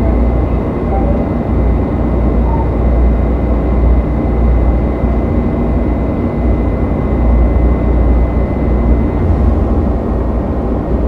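Steady low rumble and hum of a Washington Metrorail train standing at a station with its doors open. A thin steady high-pitched whine cuts off about nine seconds in.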